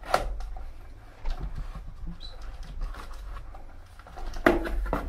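Knife blade slitting and scraping along a cardboard mailer box, with the cardboard flaps rustling and creasing as they are pulled open. The loudest scraping and tearing comes near the end.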